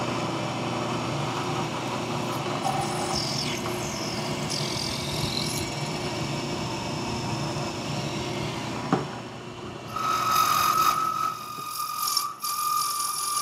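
Workshop machine tools running while a Delrin part is machined: a steady mechanical running sound with a few high gliding squeaks. After a click about nine seconds in, it cuts to a steady high whine.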